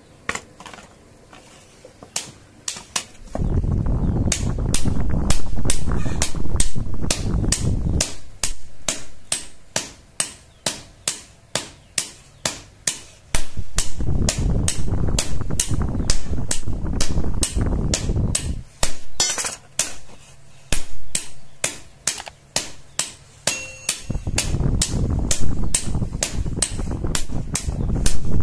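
Hand hammer striking hot steel on an anvil in a steady rhythm, about two to three blows a second, forging a tobacco-cutter blade. A low rushing noise rises under the blows three times, in stretches of about five seconds.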